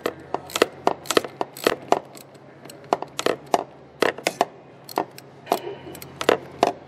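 Hand ratchet with an 8 mm socket on a long extension clicking in short, uneven strokes, about two to three sharp clicks a second, as the air intake clamp at the resonator is tightened.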